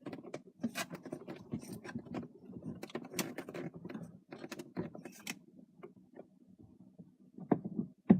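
Clicks, taps and rattles of a metal steering-wheel hub adapter being handled and fitted onto the steering column shaft, with one sharp knock near the end.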